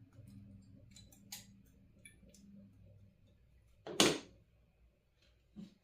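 Component leads on a circuit board being snipped with wire cutters: a few light clicks, then one loud sharp snap about four seconds in and a smaller snap near the end.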